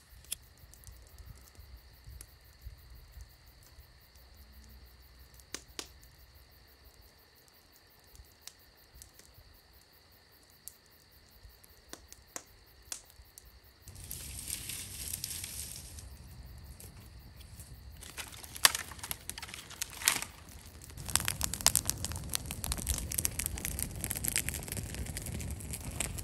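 Night insects trilling steadily, with scattered faint clicks and crackles. About halfway through a burst of hiss comes in, followed by louder rustling and handling noise with sharp clicks.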